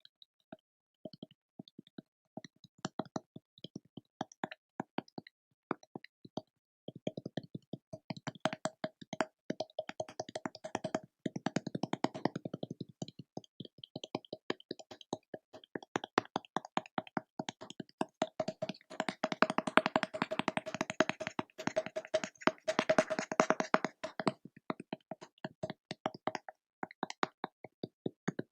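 Crackling: rapid small clicks and snaps, sparse at first, thickening into dense runs in the middle and again in the last third, then thinning out near the end, with a faint steady tone under the thickest stretches.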